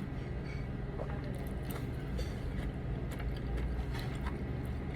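Light clicks and taps of utensils against a bowl while eating, scattered a few times, over a steady low background hum.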